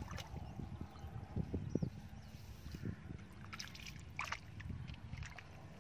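Low, uneven rumble of wind buffeting the microphone, with small splashes and sloshing of hands working in shallow muddy water, a few short crackles near the middle.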